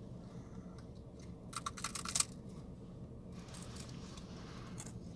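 Crinkling and rustling of a snack wrapper being handled, with a quick run of sharp crackles about two seconds in and softer rustling later.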